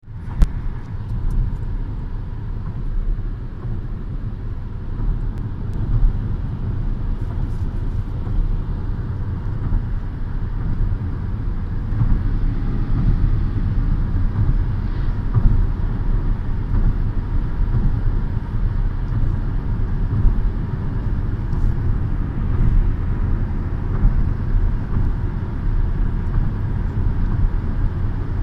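Steady low road and engine noise inside the cabin of a Peugeot 2008 driving at speed, with a single sharp knock just after the start.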